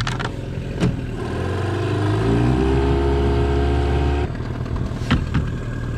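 A small boat's outboard motor is throttled up, its pitch rising and holding for about two seconds, then eased back abruptly around four seconds in as the boat moves off. A couple of sharp knocks sound over it.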